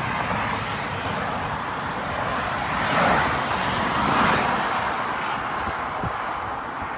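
Freeway traffic rushing past, with two vehicles passing close about three and four seconds in.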